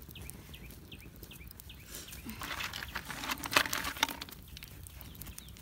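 Snail shells clicking and rustling against a wire grill over charcoal as they are set down, with a few sharp clicks in the middle. A bird gives a quick run of short falling chirps near the start.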